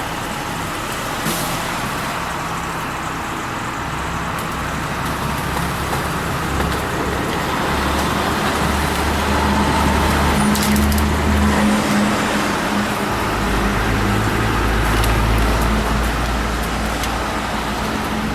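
Road traffic and idling vehicle engines, a steady rumble with low engine hums that shift about halfway through.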